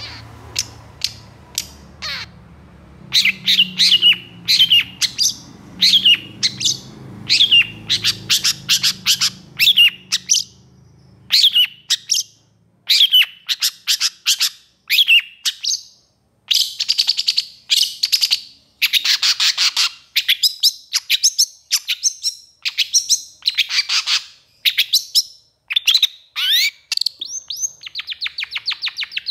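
Long-tailed shrike (cendet) calling in fast runs of sharp, downward-slurred notes, several a second. About halfway through they turn into harsher, scratchier calls.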